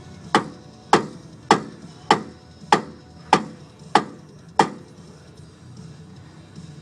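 Hammer blows on the metal wheel hub assembly of a 2001 Dodge Ram 1500 during a hub and wheel bearing change: eight evenly spaced strikes, a little under two a second, each with a short ring, stopping after about four and a half seconds.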